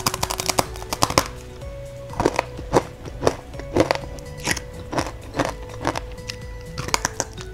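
Crisp crunching and snapping of dry, seasoned mie lidi flour-stick snacks being bitten off a bundle and chewed. A quick run of crunches comes near the start, then repeated bites and chews about every half second to second, over soft background music.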